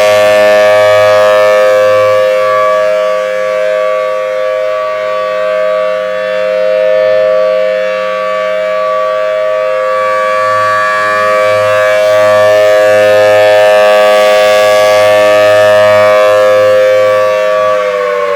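Federal Signal Thunderbolt 1000T Series B outdoor warning siren sounding a steady alert tone that slowly swells and dips in loudness. Near the end its pitch begins to fall as the siren winds down.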